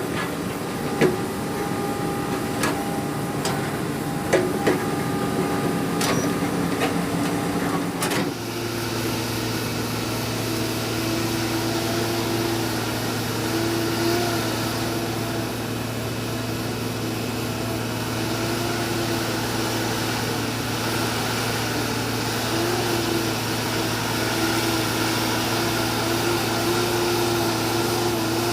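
Excavator's diesel engine and hydraulics running steadily, with several sharp metal clanks in the first eight seconds. About eight seconds in the sound changes abruptly to a steadier engine drone with a higher tone that wavers up and down.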